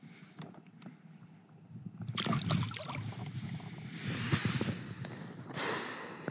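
Water sloshing and splashing around a kayak, with scattered knocks of handling, starting about two seconds in. A short hiss comes near the end.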